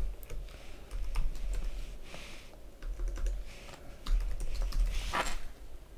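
Typing on a computer keyboard: a run of irregular key clicks with short pauses between words.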